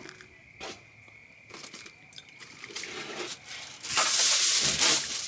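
Liquid being poured while making pour-over coffee: quiet at first, then a trickle builds about halfway through into a loud, steady pour over the last second or so.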